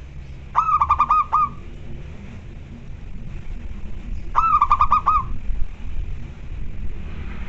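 Zebra dove (perkutut) cooing: two quick runs of rapidly repeated notes, each about a second long, about four seconds apart.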